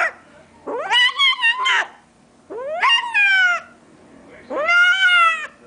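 Domestic cat meowing three times in long, drawn-out calls of about a second each, every call rising and then falling in pitch.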